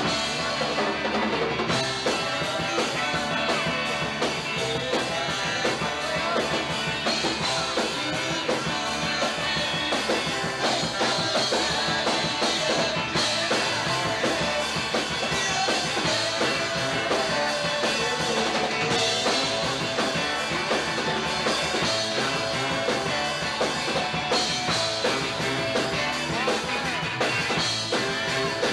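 Live rock band playing with electric guitars and a drum kit, a steady, dense full-band sound throughout.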